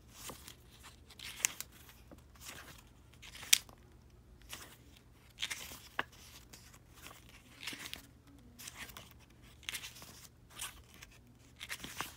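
Pages of a thin paper album booklet being turned one after another: a dozen or so short rustles and paper flicks at irregular intervals, one sharp snap about three and a half seconds in.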